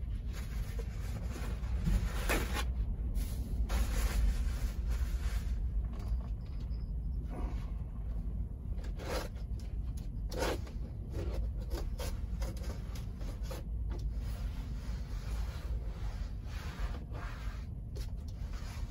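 A cloth wiping and rubbing hard plastic surfaces in short, irregular strokes, over a steady low rumble.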